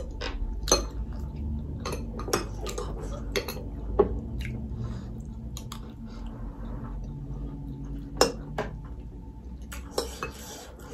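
Metal forks clinking and scraping against glass bowls during eating, in a dozen or so sharp clinks at irregular intervals.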